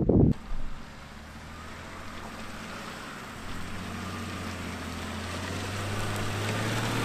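Ineos Grenadier's engine running at low, steady revs as the 4x4 drives over loose earth, growing gradually louder as it comes closer. A brief loud rush of noise cuts off in the first moment.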